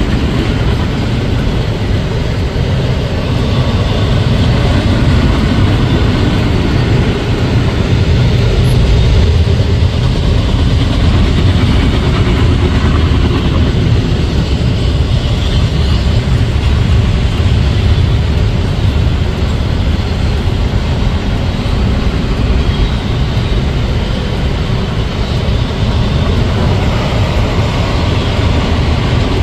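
Double-stack intermodal freight train's container well cars rolling past: a loud, steady rumble of steel wheels on rail.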